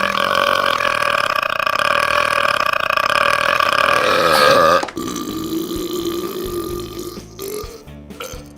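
A person belching at length: one long, loud burp of nearly five seconds that cuts off abruptly, then a second, lower and quieter burp that fades out.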